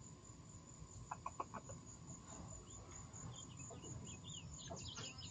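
Faint outdoor ambience: a steady high insect trill, with a few soft clicks a little over a second in and some short faint chirps in the second half.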